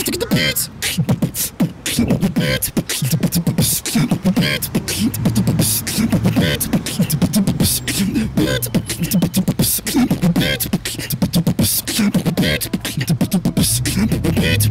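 Background music built on beatbox-style vocal percussion: a fast, dense run of mouth clicks and beats with wavering vocal sounds over them. A steady low bass note comes in near the end.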